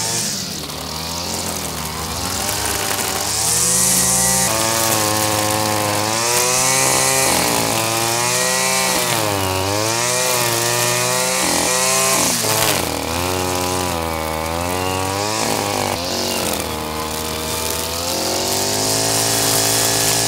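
Petrol brush cutter running hard, its small engine revving up and down as the cutting line works through tall grass, with recurring bursts of high hiss.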